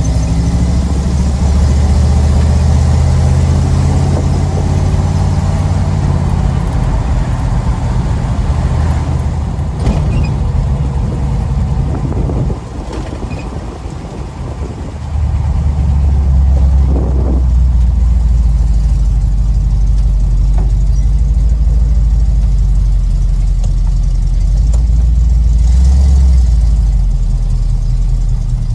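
Small-block Chevy 350 V8 of a 1936 Chevy coupe hot rod running under way through its new exhaust, a steady low drone. It drops off sharply for a couple of seconds about halfway through, then picks back up.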